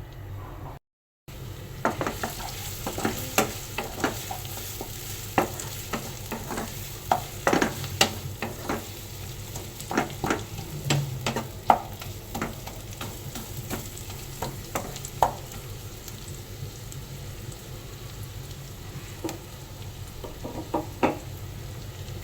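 Sliced onions sizzling in hot mustard oil in a karahi while a utensil stirs them, knocking and scraping against the pan in irregular sharp clicks. The onions are being fried until they turn brown.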